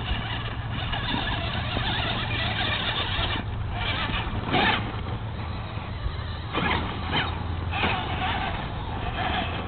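Scale RC rock crawler's electric motor and gears whining in short bursts that glide up and down in pitch as the throttle is worked, several times from about three and a half seconds in, over a steady low hum.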